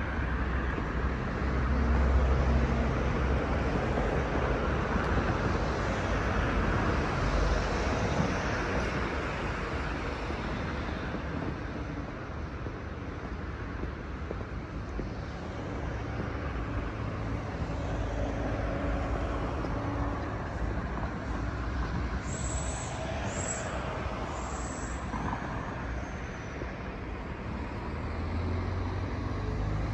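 Street traffic: cars and other vehicles passing on a busy road, a steady road noise with a low engine rumble. About three-quarters of the way through there are three short, high-pitched squeaks.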